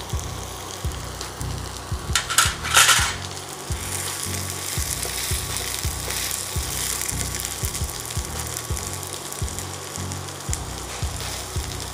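Butter sizzling steadily under a slice of bread frying semolina-batter-side down in a nonstick frying pan over medium heat, with a brief louder burst about two seconds in.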